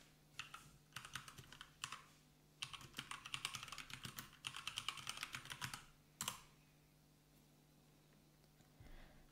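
Typing on a computer keyboard: a few scattered keystrokes, then a fast run of them for about three seconds. It stops about six seconds in, with one last press.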